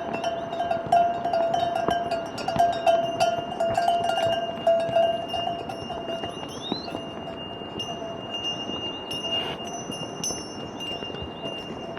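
Metal bells ringing and jangling, with a steady ringing tone and many small clinks throughout.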